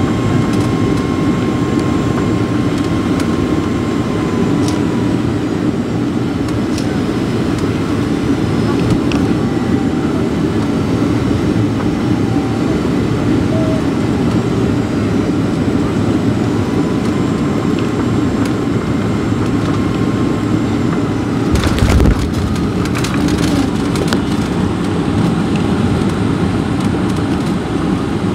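Steady jet engine and airflow noise inside the cabin of a Boeing 757-300, with a faint engine tone that dips slightly in pitch and comes back. A brief thump comes about 22 seconds in.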